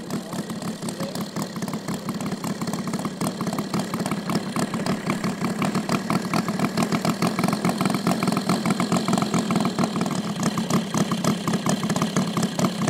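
Saito FG-90R3 three-cylinder four-stroke gasoline radial engine in a giant-scale RC warbird, idling with a fast, even beat as the model taxis. It grows louder over the first several seconds as the plane comes closer.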